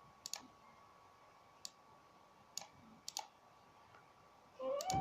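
Light, sharp clicks, about five, spaced irregularly over a few seconds, with a high, drawn-out voice-like call starting near the end.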